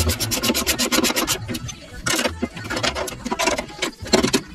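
Ratchet wrench clicking in quick runs of evenly spaced clicks as bolts on a go-kart chassis's lower axle-bearing carriers are nipped up gently.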